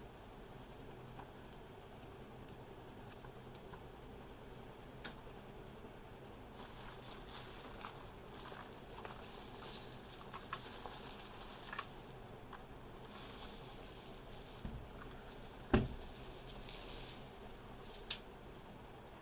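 Packaging rustling and being handled, with scattered light clicks and taps. There is one sharp knock about three-quarters of the way through and another click near the end.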